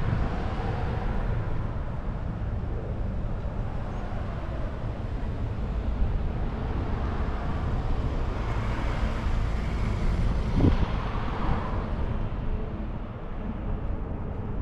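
Wind rumbling on the microphone over traffic noise, with a car driving past near the middle and a brief knock shortly after.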